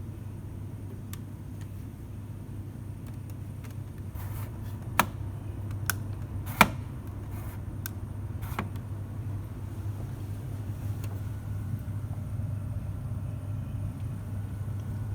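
Coffee machine running with a steady low hum that grows slightly louder, with several sharp clicks and knocks between about five and nine seconds in, the loudest near the middle.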